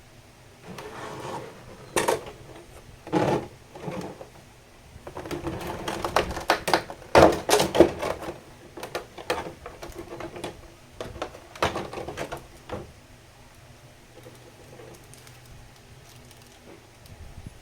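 Figure packaging being handled: an irregular run of taps, knocks and rustles of cardboard and plastic, busiest and loudest about six to eight seconds in, then thinning out to a few light clicks.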